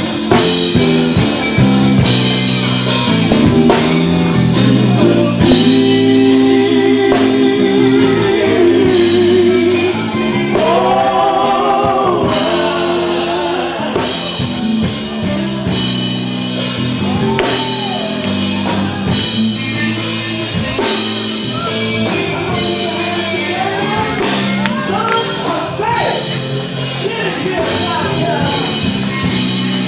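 Live gospel music: a band with drum kit and electric guitar playing, with a lead singer's voice riding over it.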